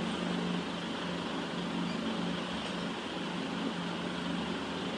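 Steady background drone: a low, even hum with a hiss over it, with no clear change throughout.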